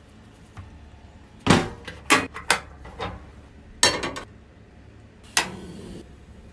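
Cooking utensils knocking and clinking against hard cookware, about seven sharp, irregular strikes. The last strike, near the end, trails a brief hiss.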